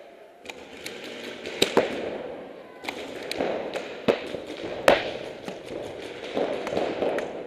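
Paintball markers firing in a large indoor hall: sharp pops at irregular intervals, each echoing briefly, over a continuous din of more shots.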